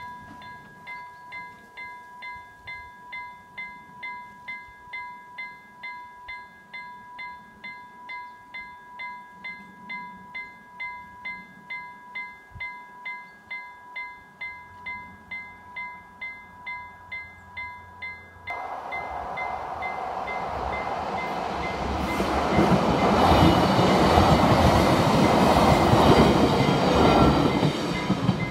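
Level-crossing warning bell ringing in steady, rapid, evenly spaced strokes. About two-thirds of the way in, an approaching Roslagsbanan X10p electric multiple unit adds a rushing running noise that grows loud and covers the bell, loudest near the end.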